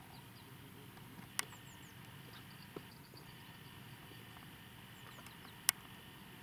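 Quiet waterside background with a few sharp clicks, two of them louder, about a second and a half in and near the end, and faint high chirps.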